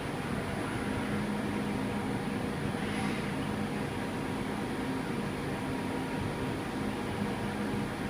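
CNC milling machine running with a steady hum and hiss during a probe measuring cycle, a low tone coming and going several times as the axes move.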